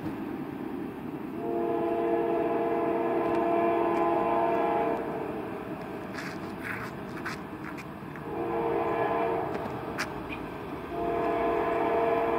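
Approaching locomotive's multi-note air horn sounding for the grade crossing: a long blast, a shorter one, then another long blast starting near the end, over the low rumble of the train.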